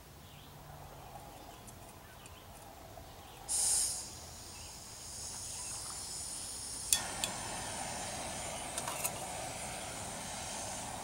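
Small canister gas stove being lit. About three and a half seconds in there is a short, loud burst of gas hiss, then gas hisses steadily from the opened valve. About seven seconds in a sharp click comes as it lights, and the burner then runs with a steady hiss. A couple of light metal clinks come as a metal cup is set on it.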